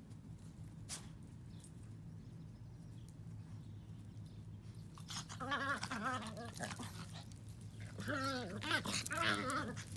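Miniature pinschers vocalizing as they play-fight: two stretches of wavering, pitched whine-growls, about five seconds in and again near the end.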